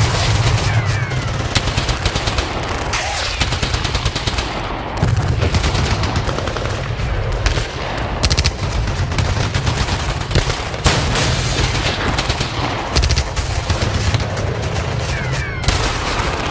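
Battle sound effect of sustained gunfire: many rapid, overlapping shots with a steady low rumble beneath.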